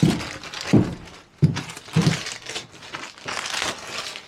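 Plastic crinkling and rustling as it is handled, with several short soft knocks in between.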